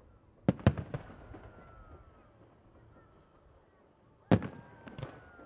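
Aerial firework shells bursting: three bangs in quick succession about half a second in, then another group of bangs near the end, each trailing off in an echo.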